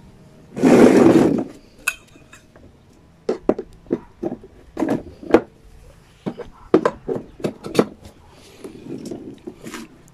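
Lawnmower handle tubes being pushed and worked into the sockets of the plastic mower deck: a loud sliding scrape about half a second in, then a run of sharp clicks and knocks, and a softer rubbing near the end.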